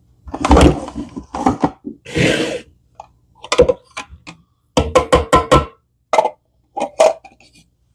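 Plastic food processor bowl being lifted off its base and knocked against a mixing bowl to empty out ground chicken: irregular clunks and knocks, with a quick run of about five sharp taps about five seconds in.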